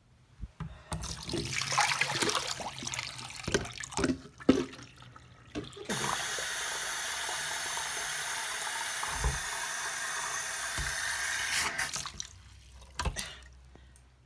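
Water running into a bathroom sink, splashing unevenly at first with a plastic jug knocking against it, then a steady stream for about six seconds that cuts off suddenly, followed by a couple of knocks.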